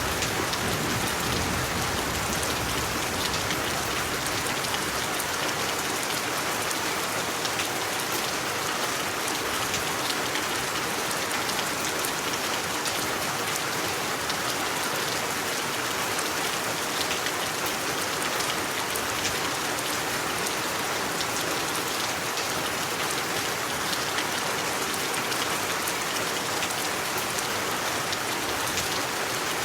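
Steady, even rain falling on a surface, a dense hiss of many drops with fine ticks of individual drops all through.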